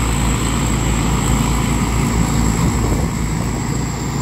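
Rice combine harvester's diesel engine running steadily under load as it cuts and threshes rice, a constant drone with a thin high whine above it.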